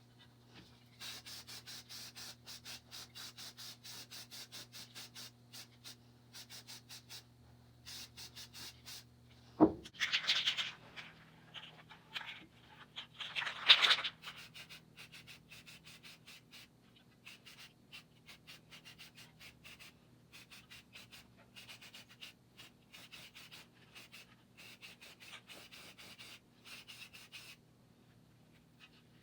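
Quick, even back-and-forth hand rubbing strokes, like sanding or scrubbing. A sharp knock comes about ten seconds in, followed by a few louder scraping strokes, then lighter even strokes again.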